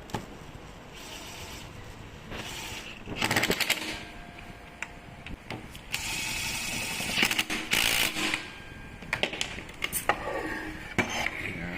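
Workbench repair noises: bursts of rapid rattling and clicking of tools and metal parts being handled, with scattered sharp clicks and no motor running.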